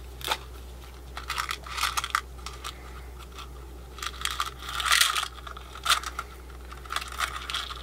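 Strand of small wooden beads clicking and rattling against each other as it is handled, with rustling of its clear plastic packaging. The clicks come in scattered clusters, with a denser, louder spell of rattling and rustling about four to five seconds in.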